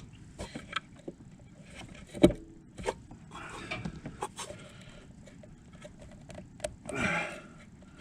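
Scattered clinks and knocks of a flywheel being worked onto the keyed crankshaft of a Yamaha Vmax 700 triple snowmobile engine, with one loud knock about two seconds in and a short scraping rush near the end.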